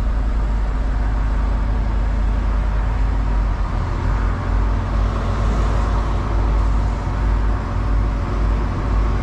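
Volvo semi-truck's diesel engine idling, heard from inside the cab as a steady low drone.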